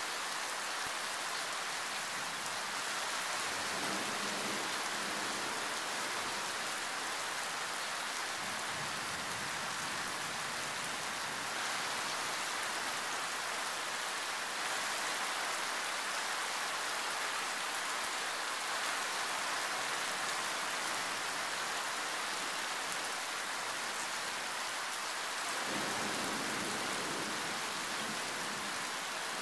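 Heavy tropical rain falling steadily and loudly. Low rumbles of thunder swell faintly under it a few seconds in and again near the end.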